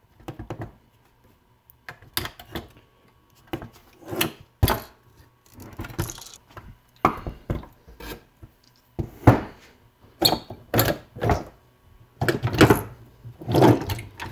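A123 26650 lithium iron phosphate cells, joined by nickel strips, being worked loose from a plastic cell holder and set down on a wooden workbench: irregular knocks, clacks and short scrapes.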